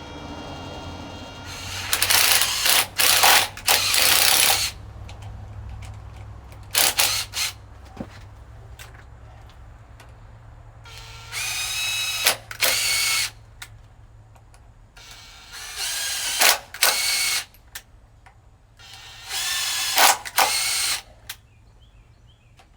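Cordless power drill running in about ten short bursts, mostly in pairs, its motor whine climbing as it spins up, as bolts are run in and out of threaded holes, several of which are stripped.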